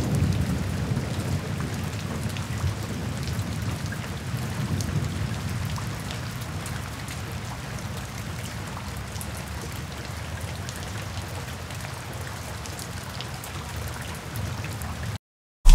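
Steady rain falling, with scattered drop ticks over a low rumble that eases off over the first several seconds; the sound cuts off abruptly near the end.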